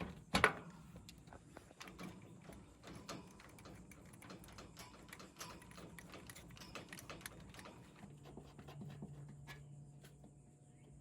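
Scattered clicks and knocks, with a sharp one about half a second in. A low steady hum comes in about eight seconds in.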